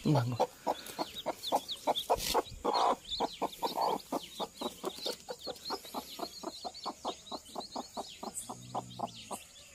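A mother hen clucking rapidly and steadily, about five clucks a second, with her newly hatched chicks peeping in thin, high calls above.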